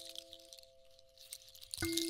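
Clear ringing tones of sound-healing chimes or bowls fading away over a soft, high crackling patter. About two seconds in, a new note is struck and rings on clearly.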